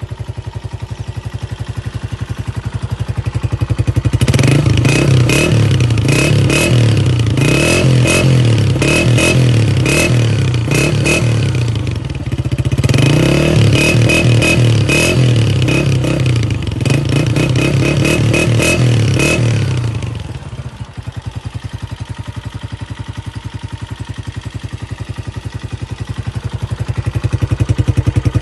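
Honda CG125's single-cylinder four-stroke engine breathing through a KYH silencer: idling, then revved up for about sixteen seconds with a brief dip partway, then dropping back to idle and picking up again near the end.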